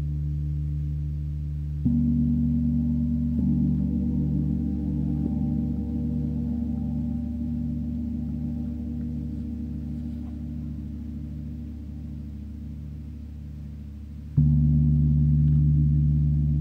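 Meinl Eight Corners of Heaven mirror gong played quietly near the centre with a large soft mallet, giving a deep, rich sustained tone. It is struck about two seconds in and again lightly a moment later. The ring then pulses slowly and fades until a stronger stroke near the end swells it back up.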